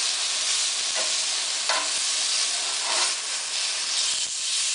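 Steak sizzling on a hot ridged stovetop grill pan, with a few sharp clicks of metal tongs against the pan as the pieces are moved.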